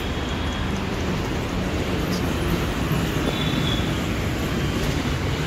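Steady, loud rushing outdoor noise with a rumbling, fluctuating low end.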